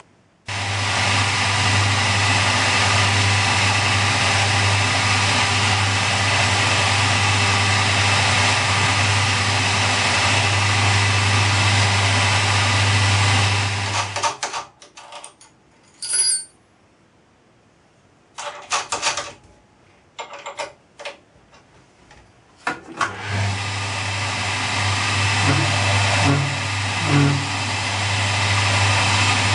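Milling machine spindle motor running with a steady hum, switched off about halfway through. A few clicks and knocks follow while the bit in the chuck is handled, then the motor starts again and runs as a D bit cuts a counterbore for an O-ring.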